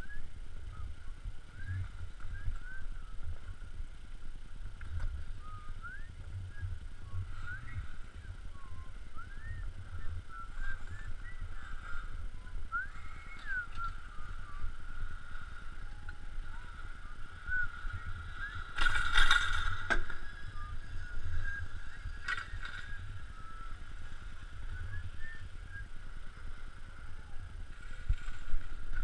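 Riding a T-bar surface ski lift: a steady, squeaky whine from the lift, with many short squeaks over a low rumble of skis sliding on packed snow. A brief, louder burst of noise comes about two-thirds of the way through.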